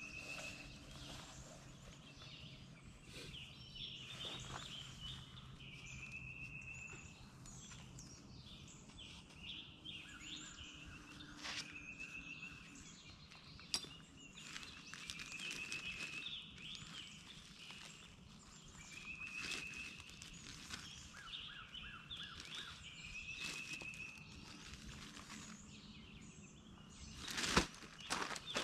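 Birdsong: one bird repeats the same short call about every four seconds while others chirp in between. Faint rustling runs underneath, with a few sharp knocks, the loudest near the end.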